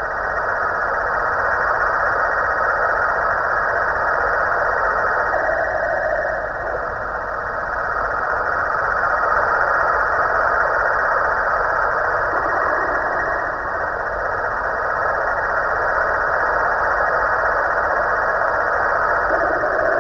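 Snoring Halloween pumpkin decoration: a continuous snore that swells and fades slowly, dipping about a third and two thirds of the way through.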